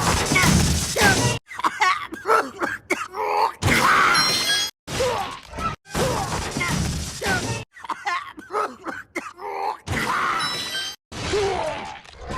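A short vocal-like sound clip played over and over in abruptly cut segments, each one distorted by a different audio effect, with brief gaps of silence between segments.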